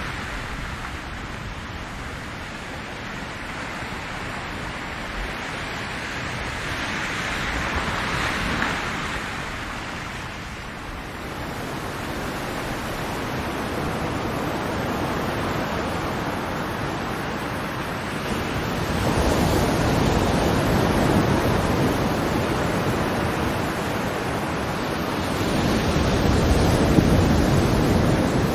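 Ocean surf with waves washing in: a steady rushing that swells and falls back in slow surges, three of them, the loudest near the end.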